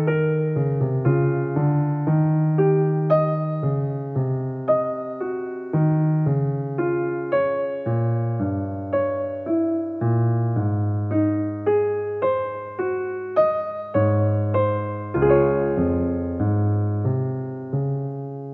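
Background piano music: notes picked out at an even, unhurried pace over a bass line, the last chord dying away near the end.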